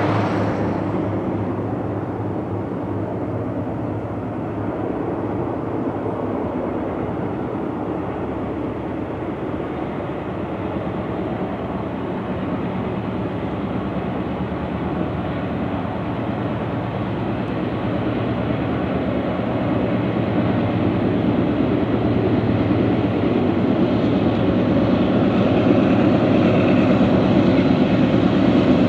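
Diesel locomotives of a Norfolk Southern freight train running as the train approaches. A steady engine drone grows louder over the last ten seconds or so.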